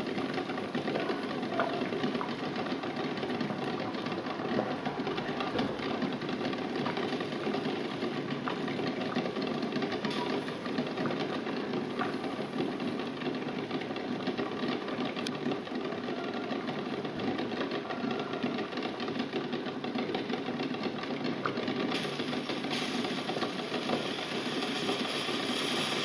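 Water at a rolling boil in a stainless steel pot, with several eggs jostling and rattling against the pot's bottom and against each other in a rapid, steady clatter. The hiss of the boil grows brighter near the end.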